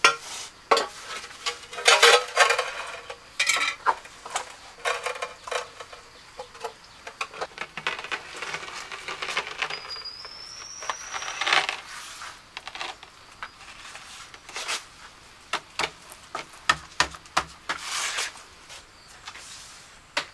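Irregular clinks, taps and scrapes of hand tools working hard building materials such as tiles and fittings, with a short rising chirp about halfway through.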